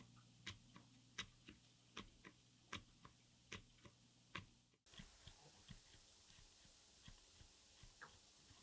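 Typing on a mechanical keyboard fitted with silent switches: soft, faint keystrokes at an irregular pace of about two a second. About halfway through, the recording cuts to a run of lighter, quicker taps.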